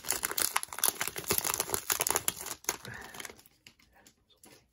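Foil wrapper of a hockey card pack crinkling and tearing as it is pulled open by hand. The crackling stops about three seconds in, leaving a few faint ticks.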